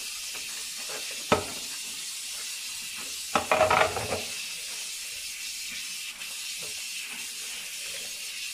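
Tap water running steadily into a sink while vacuum cleaner parts are rinsed, with a sharp knock about a second in and a short clatter of hard plastic parts against the sink a little later.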